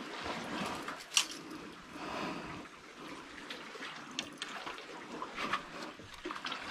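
Gloved hands and shoes scuffing and tapping on limestone rock during a scramble, with a few sharp clicks, the clearest about a second in, over a faint wash of water.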